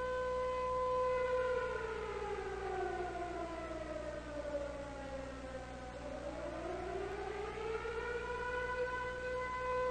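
Civil defence air-raid siren sounding a steady tone, then about a second in sliding down in pitch for several seconds and climbing back up to the same steady tone near the end.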